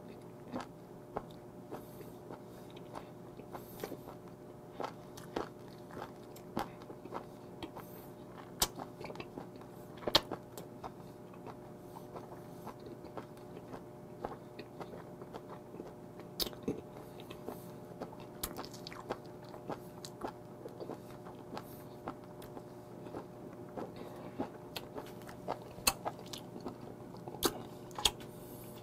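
Close-miked chewing of raw live small octopus (sannakji): irregular wet clicks and smacks of the mouth, over a faint steady hum.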